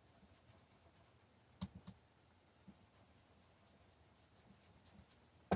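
Small stencil brush rubbing ink onto cardstock through a stencil: faint soft brushing, with a few light taps about a second and a half in and a sharper tap at the very end.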